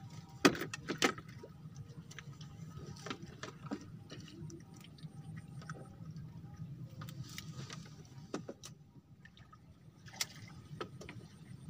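Scattered sharp clicks and knocks of fishing rods and a spinning reel being handled on a bamboo raft, the two loudest about half a second and a second in, over a steady low hum.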